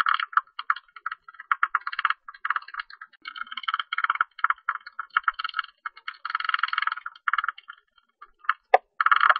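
Tube-nosed bat calling: fast trains of dry clicks run together into buzzing bursts, each from a fraction of a second to about a second long, with short gaps between them.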